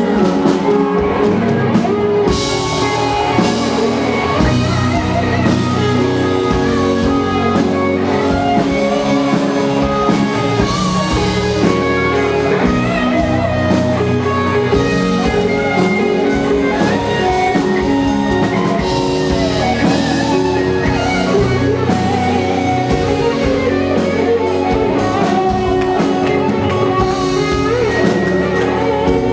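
Instrumental band music with guitar and drum kit playing a steady beat over sustained chords.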